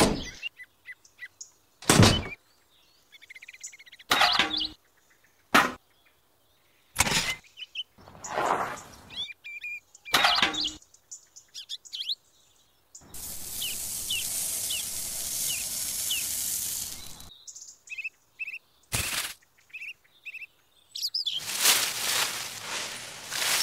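Sharp knocks and clicks as toy mixer parts and a tin can drum are handled, with birds chirping in the background. A steady hiss runs for about four seconds midway. Near the end there is a rustling pour as cement powder is tipped from a small box into the can.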